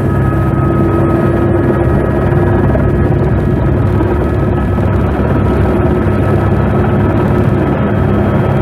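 Helicopter's turbine engine and rotor running steadily on the ground before lift-off, heard from inside the cabin: a low thrum under a steady high whine.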